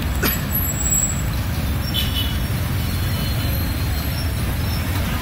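Motorcycle taxi ride through city traffic: a steady low rumble of engine and road noise, with a brief falling tone just after the start and a few short high tones about two seconds in.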